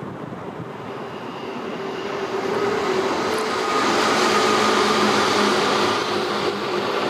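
Noise of a passing vehicle with a steady engine hum, swelling to its loudest about four to five seconds in and then easing off.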